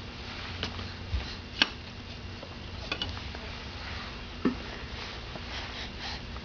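A few light, scattered taps and clicks, about five spread over several seconds, in a quiet small room.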